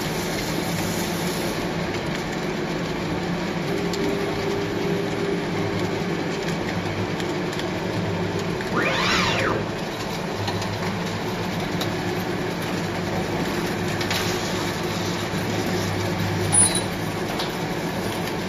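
Wave soldering machine running, a steady mechanical hum and rattle from its finger-chain conveyor and motors. About nine seconds in there is a brief whine that rises and falls, and near the end a short click.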